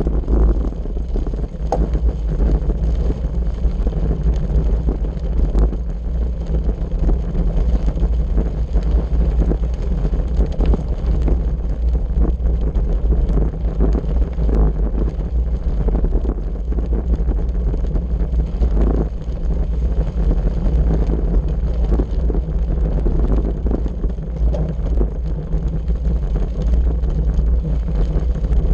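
Wind rumbling on an on-board camera's microphone as a road bike rolls over a gravel road, with the steady crackle and rattle of the tyres on loose gravel.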